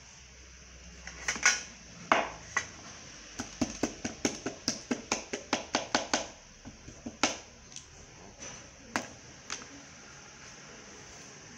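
Light clicks and taps of hands handling a disassembled Samsung Galaxy J7 Prime's metal frame and its small screws on a desk. A couple of sharper knocks come first, then a quick run of about five clicks a second for a few seconds, then a few scattered taps.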